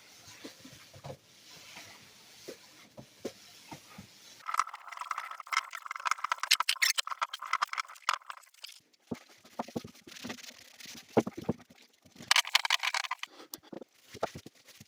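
Woodworking handling noise: scattered clicks and knocks, with a burst of scraping or rasping from about four to eight seconds in and a shorter one a little before the end.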